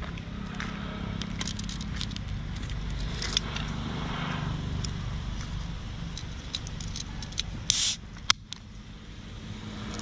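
An aluminium soda can wrapped in burnt firecracker casings being handled and turned over by hand: scattered light clicks and papery crackle, with a short louder hiss about three-quarters through and a sharp click just after it. Under it runs a steady low hum like a vehicle engine.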